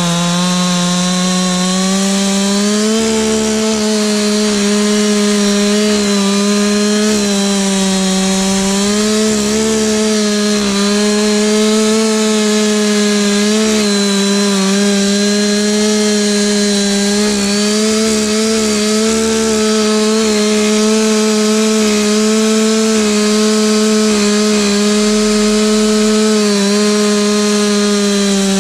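Husqvarna 365 X-Torq two-stroke chainsaw held at full throttle, ripping lengthwise along a pine log in a freehand milling cut. It runs steadily, its pitch sagging briefly now and then as the chain loads up in the wood.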